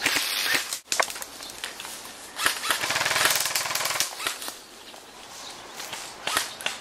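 Airsoft rifle firing a rapid full-auto burst about three seconds in, lasting just over a second, with scattered single shots or snaps before and after it.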